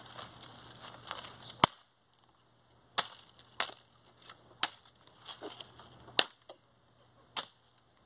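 Machete chopping into brush and wood at ground level: about nine sharp, irregularly spaced blows, with rustling of dry brush before the first.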